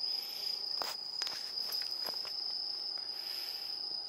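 Crickets trilling in one steady, unbroken high note, with a few soft clicks about a second and two seconds in.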